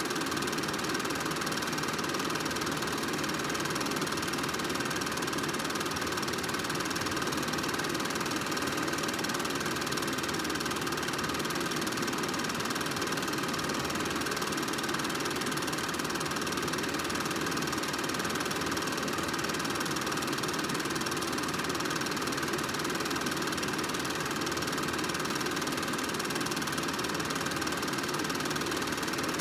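Film projector running: a steady, unchanging mechanical noise with a faint steady hum in it.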